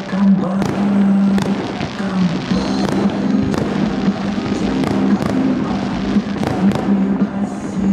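Fireworks display: aerial shells bursting in the sky, sharp bangs at about two a second in an irregular string, over a steady low background tone.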